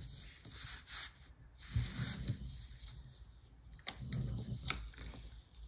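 Paper planner stickers being handled, peeled and pressed onto a page: light papery rustling with a few small clicks and taps.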